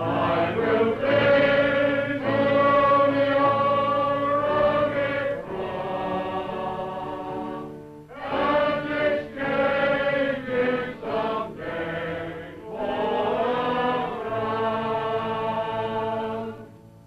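A congregation of men singing a hymn together in long held phrases, with a brief break about eight seconds in; the singing stops shortly before the end.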